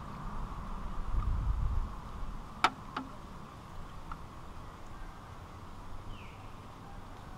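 Two sharp knocks about a third of a second apart as a glass bottle is set down on a small camp table, over a steady outdoor background drone, with a low rumble just before them.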